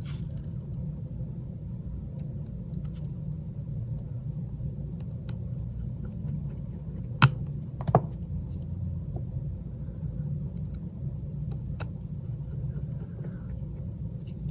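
Steady low rumble of background hum, with a few faint small ticks and two sharper clicks about halfway through, from a small screwdriver and the phone being handled as its two bottom screws are put back.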